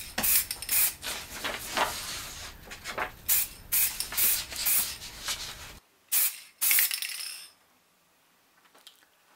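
Aerosol can of Halfords metallic silver car paint being sprayed in a quick run of short hissing bursts, about a dozen, stopping about seven and a half seconds in.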